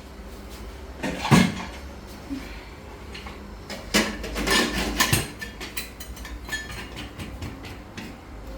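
A metal pressure cooker and its lid clanking and clicking as the lid is put on and closed. The loudest knock comes about a second in, with a cluster of clanks around four to five seconds in and lighter clicks after.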